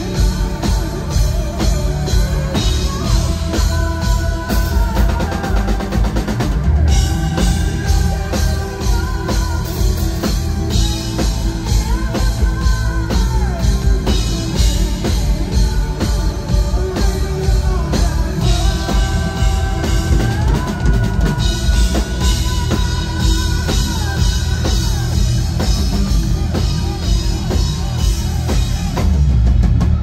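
Hard rock band playing live at full volume: steady loud drums and guitars, with a melodic lead line carried over them.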